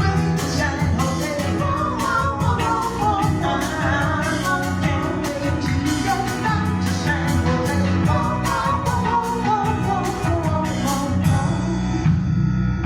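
A female vocalist singing with a live band and horns, a drum kit keeping a steady beat. The cymbal shimmer drops out about 11 seconds in.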